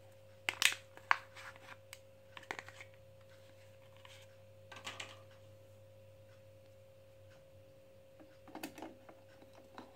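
A few scattered small clicks and taps as batteries are handled out of their blister pack and set into a plastic toy's battery compartment, over a faint steady hum.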